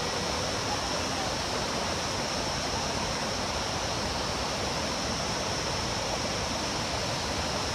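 Steady rush of a fast, rocky mountain river running as whitewater, an even noise that holds without change.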